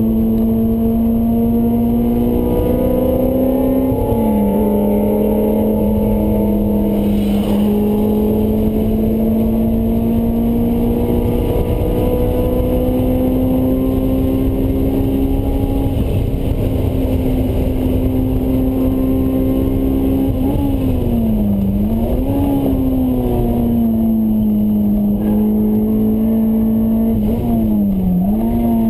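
Honda S2000's four-cylinder engine through a Mugen exhaust, heard from inside the cabin while lapping at high revs under load. Its pitch creeps slowly upward with road noise underneath, and it drops sharply a few seconds in, again about two-thirds through, and near the end as the driver changes gear.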